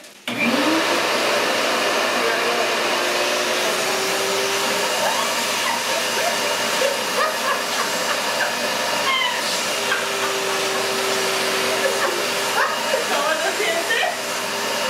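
Wet/dry shop vacuum switching on a fraction of a second in, then running steadily with its hose in a large plastic trash bag, sucking the air out of it.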